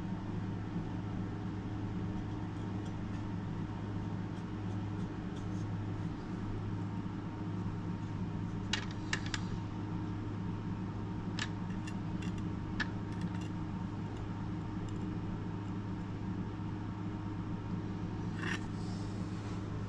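A steady low machine hum, with a few light metallic clicks and taps as a kitchen knife is handled and laid on a microscope stand: a small cluster about nine seconds in, single ticks a few seconds later, and another tap near the end.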